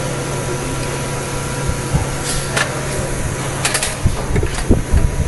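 Steady machine hum, with a few sharp clicks about halfway through and a run of soft knocks near the end as metal fixture parts are handled on a screen printing machine.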